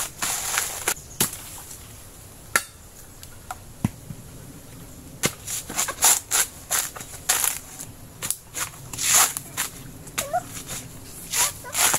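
Coconuts being chopped and split open with a blade: irregular sharp knocks and cracks, some single, some in quick runs of two or three.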